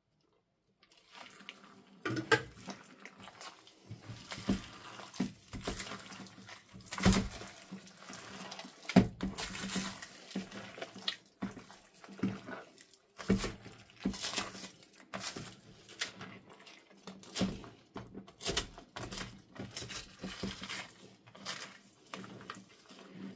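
Clear slime squeezed and kneaded by hand with a heap of small beads worked into it: irregular wet squishes, pops and crackles, starting about two seconds in.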